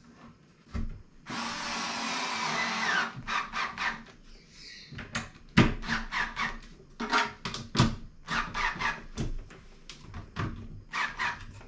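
Small electric screwdriver running for about two seconds, driving a screw into the crate's soft-wood panel. It is followed by a string of irregular clicks and knocks as screws and the wooden crate are handled.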